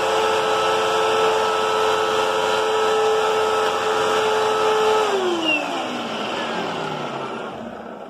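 Hoover Agility Cyclonic bagless upright vacuum cleaner running with a steady whine. About five seconds in it is switched off and the motor winds down, its pitch falling away.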